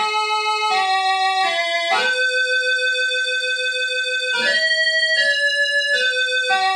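Orla Carousel electronic keyboard playing a slow single-note melody in an organ-like voice. Each note is held at an even level, and a short click marks each change of note. The longest note is held for about two seconds, starting about two seconds in.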